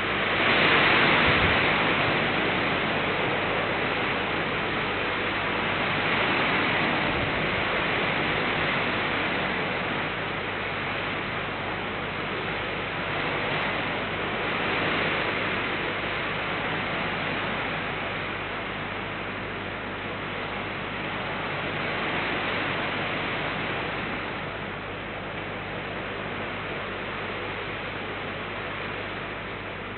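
Steady rain hiss that swells and eases every few seconds, over a low steady hum.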